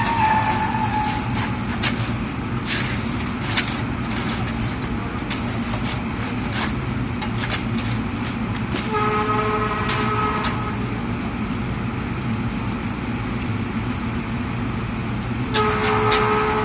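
Heavy construction machinery running steadily with a low engine drone, and a held horn-like tone sounding twice, partway through and again near the end, each about a second and a half long. A few light knocks come in the first few seconds.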